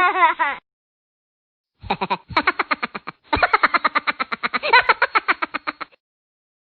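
Laughing sound effects: a wavering, giggling laugh cuts off about half a second in. After a second of silence, a second laugh of fast, short "ha" pulses, about eight a second, runs for some four seconds with a brief catch near the middle.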